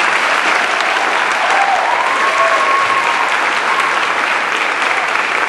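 Audience applauding loudly, with a few shouts and cheers rising over the clapping about two seconds in.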